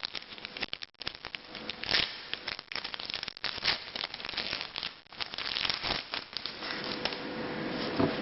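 Foil booster-pack wrapper of Pokémon trading cards crinkling and crackling as it is handled and torn, in irregular bursts.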